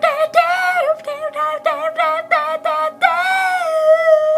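A high-pitched voice singing a quick run of short repeated syllables, about four a second, then holding one long note that slides downward near the end.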